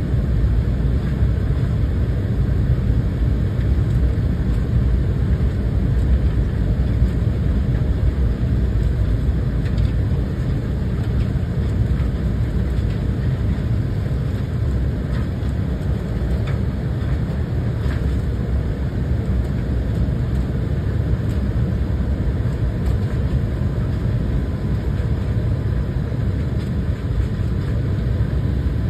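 Steady low rumble of an airliner cabin in flight: jet engine and airflow noise heard from a window seat, with a faint steady tone above it.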